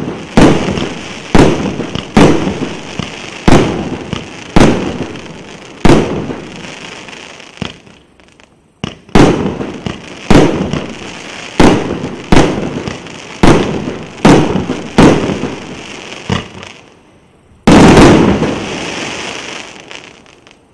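A 1.2-inch, 49-shot fireworks cake firing shot after shot, about one sharp bang a second, each trailing off into the next. There is a brief pause about halfway through, and near the end one louder, longer burst.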